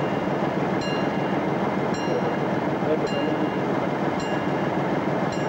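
Diesel-electric locomotive idling, a steady, even engine noise with no change in level. A short high-pitched ping repeats a little more than once a second.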